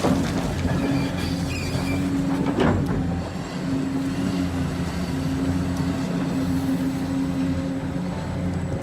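Electric motors and gearing of radio-controlled construction models running with a steady hum, with a couple of clattering knocks, the loudest just after the start and about two and a half seconds in.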